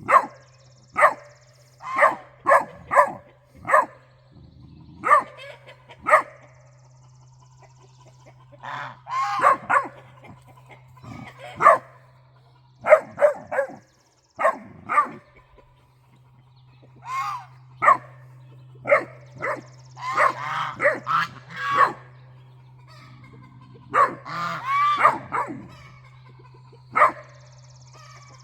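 Great Dane puppy barking in short, sharp barks at irregular intervals, with geese honking back in longer clusters of calls.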